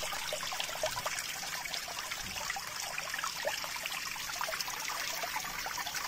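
Water trickling and splashing over wet pebbles in a small homemade fountain, a steady patter of many small drops.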